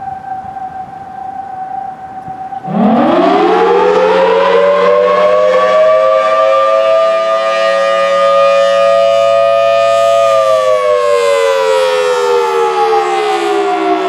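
Federal Signal Thunderbolt 1000T rotating tornado siren sounding the attack signal. After a quieter steady tone, it starts suddenly nearly three seconds in with several tones at once, climbs steeply in pitch and holds high. About ten seconds in, its pitch begins a steady fall.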